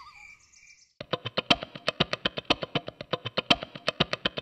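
Birdsong fades out within the first second. After a brief gap, a guitar starts picking a fast, even run of sharp notes as intro music.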